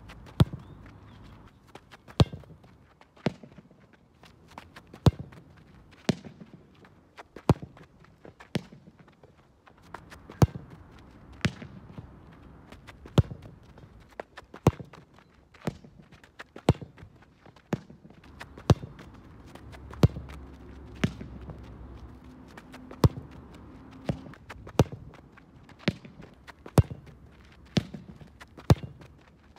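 Sharp thuds of a soccer ball being struck with the foot and hitting a concrete practice wall, one roughly every second at an uneven pace.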